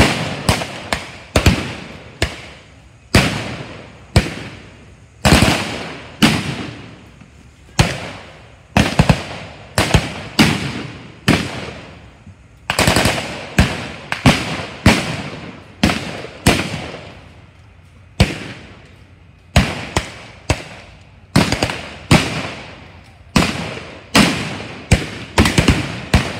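Re-enactment gunfire from blank-firing small arms: irregular single shots mixed with quick strings of shots, each crack trailing off in an echo.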